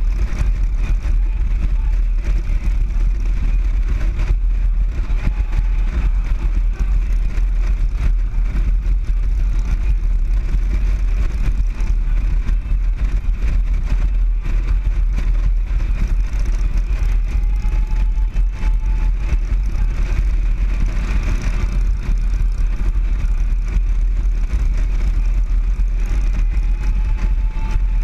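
Motorcycle riding at steady road speed: the engine runs evenly under a heavy, steady wind rumble on the bike-mounted microphone.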